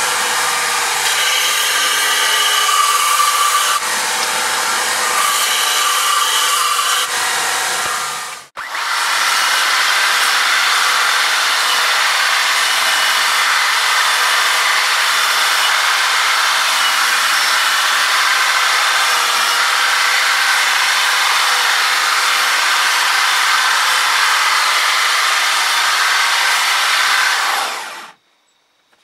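Belt sander running as wooden knife-handle pieces are pressed against the belt. After a short break about eight seconds in, a sanding disc spins in a drill press as the wooden handle is ground against it, a steady grinding that stops shortly before the end.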